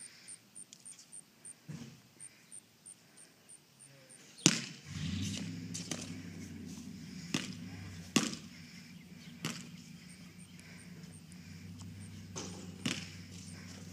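Basketball hitting the concrete driveway and the hoop: a series of sharp knocks at uneven spacing, the first about four and a half seconds in and the loudest. Before that only a fast, high insect chirping, about four chirps a second, is heard, and a low steady hum comes in just after the first knock.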